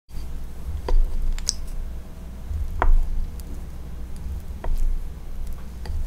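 Wooden fork and spoon cutting into and scooping a soft, warmed chocolate fondant cake on a ceramic plate: about five light clicks of utensil on plate, over a steady low rumble.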